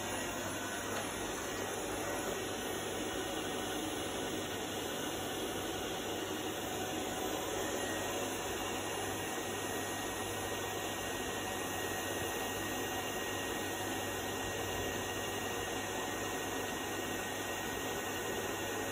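iLife V55 Pro robot vacuum running: the steady hum of its suction fan and spinning brushes, with no change in level.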